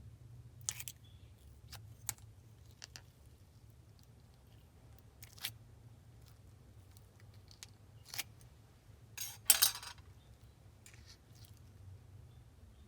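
Clear slime being handled, giving scattered sticky clicks and pops, with a louder run of crackling pops about nine seconds in.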